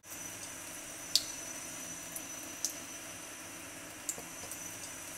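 Drinking fountain running: a steady water hiss with a faint high tone, and a sharp tick about every second and a half.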